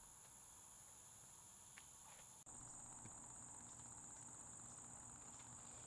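Near silence apart from faint, steady, high-pitched insect chirring, most likely crickets. About two and a half seconds in, the chirring steps to a lower pitch and becomes slightly louder.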